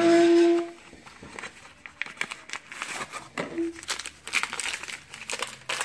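Paper inner pouches of instant pudding mix being handled and torn open, crinkling and tearing in quick bursts that grow busier in the second half. A brief loud steady tone sounds right at the start.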